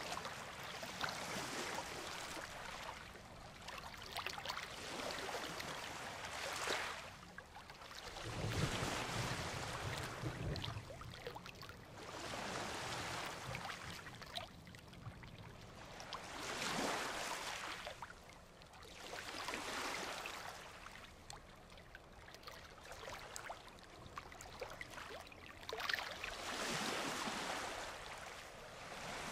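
Ocean surf: waves breaking and washing up the beach, each swell rising and fading over a few seconds, with a deeper rumble about nine seconds in.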